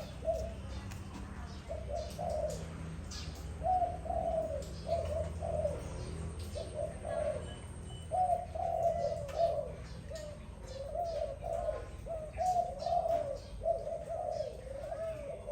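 Dove cooing: short coo phrases repeated one after another with brief gaps, over a low steady hum and scattered faint clicks.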